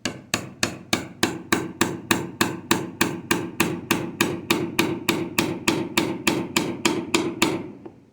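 Hammer striking a chisel in a steady run of blows, about three and a half a second, each with a short ringing note, as it chops straight down through the end grain to remove finger-joint waste. The blows stop shortly before the end.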